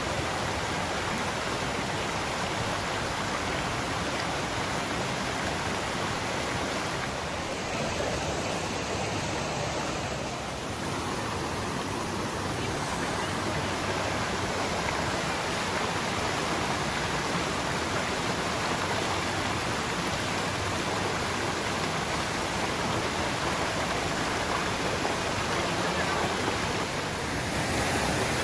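Creek water rushing over rocks in a steady rush, growing a little louder near the end.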